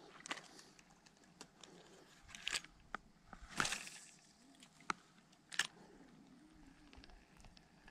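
A few separate crunches and clicks from an angler moving on a pebbly lake shore and handling a spinning rod and reel. The loudest is a longer crunch about three and a half seconds in, then a sharp click near the six-second mark, over a quiet background.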